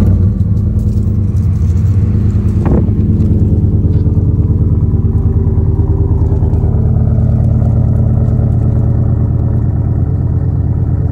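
Cammed 5.3 L LS4 V8 of a Chevrolet Impala SS catching right at the start and settling into a loud, steady idle with a choppy, pulsing exhaust note from the aftermarket camshaft.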